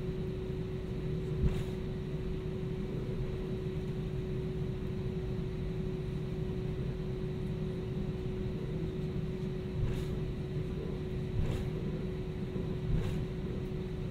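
Steady cabin noise inside an Airbus A320-200 with IAE V2500 engines: a low rumble with a steady whine running through it. A light knock comes about a second and a half in, and three more come in the last few seconds.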